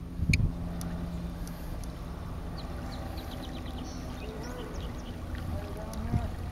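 Outdoor waterside ambience: a steady low rumble of wind and water, with a thump just after the start and a few faint high chirps in the middle.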